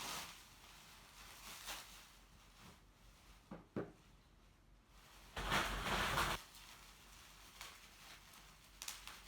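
Handling noises: two short knocks a little over three seconds in, then a burst of noise lasting about a second, as things are moved about during an unboxing.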